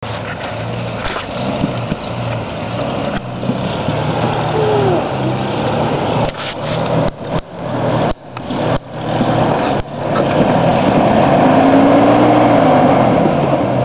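Off-road truck engine running at low revs, then revving up louder about two-thirds of the way in with a rising and falling whine. The sound drops out briefly several times midway.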